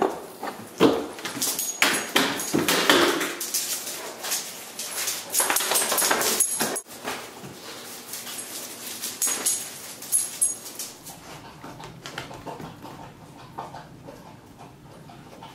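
Great Danes moving about and whimpering, with a run of knocks and clatter in the first seven seconds as the SUV's rear hatch is opened and the dogs get out, then quieter shuffling with a brief light jingle.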